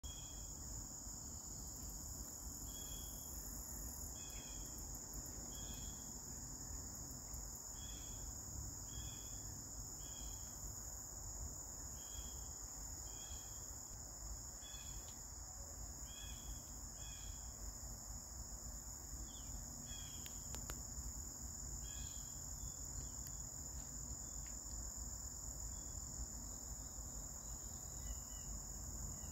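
Steady high-pitched chorus of insects such as crickets, with short chirps repeating every second or two.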